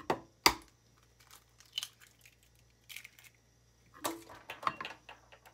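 An egg cracked open with one sharp tap about half a second in, followed by small crackles of the shell being pulled apart. A few light knocks follow around four seconds in.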